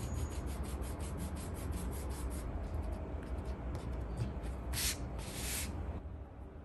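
Eraser rubbing back and forth on heavy 300 gsm mixed-media paper in quick, even strokes, cleaning pencil guidelines off around an ink drawing. It is fairly quiet, with two short louder passes about five seconds in.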